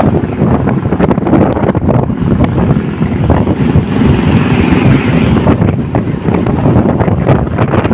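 Loud wind buffeting the microphone on a moving motorbike, with motorbike engine and road noise underneath and a brief rise in hiss about four seconds in.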